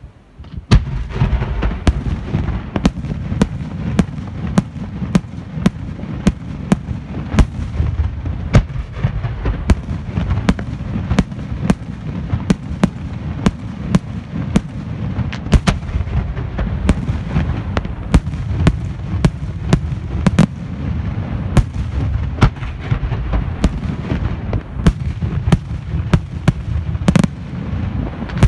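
A fireworks display with aerial shells bursting in quick succession. After a quiet moment it starts about a second in, with sharp reports about two a second over a continuous low rumble.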